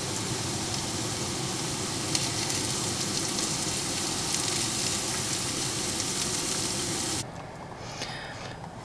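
Food sizzling in a frying pan over a gas camping stove, a steady sizzle that cuts off abruptly about seven seconds in.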